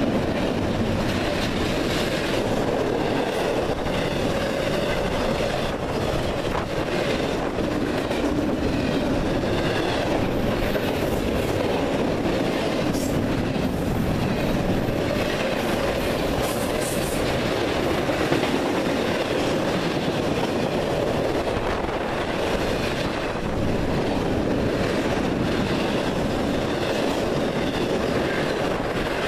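CSX intermodal freight train of double-stack container well cars and trailer flatcars rolling past: a steady rumble and clatter of steel wheels on the rails.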